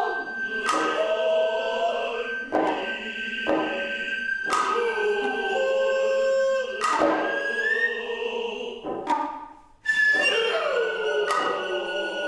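Noh music: a nohkan bamboo flute holding a high, piercing note with upward slides, sharp strokes of the Noh drums at uneven intervals, and chanted singing beneath. The music sinks almost to nothing just before ten seconds in, then comes back suddenly.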